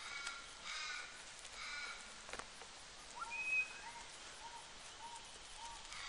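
Small birds calling: three short, harsh calls in the first two seconds, a brief clear whistled note about halfway through, then a run of short chirps about two a second.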